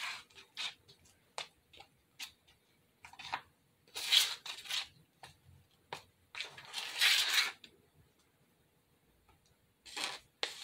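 Scoop scraping and digging through thick spackle paste in a plastic bowl. There are a few short scrapes with small clicks between them; the longest scrapes come about four and seven seconds in.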